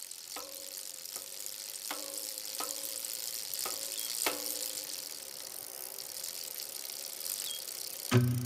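Traffic on a rain-soaked city street: a steady hiss of tyres on the wet road, with a series of short clicks, each carrying a brief tone, about every half second to a second in the first half.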